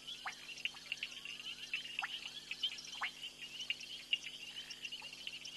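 Night frog chorus at a waterhole: a dense, rapid high chirping, with a short downward-sliding call repeating about once a second over it.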